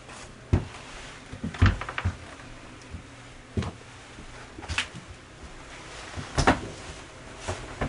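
Irregular knocks and thumps in a small room, about seven of them spaced unevenly a second or so apart.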